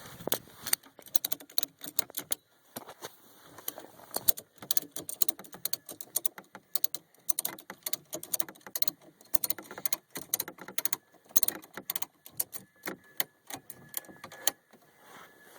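Ratchet strap being worked by hand, a long run of irregular metallic clicks as the strap is tightened to lift the plow blade off the ground.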